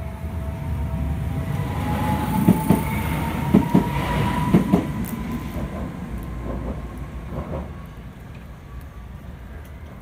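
Tokyu Setagaya Line train passing over the level crossing. Between about two and five seconds in come a run of wheel clacks over the rail joints, under a rising motor whine, and then the train's sound fades away.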